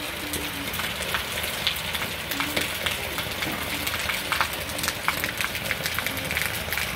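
Heavy rain falling steadily, with a dense scatter of sharp drop ticks on nearby surfaces and water.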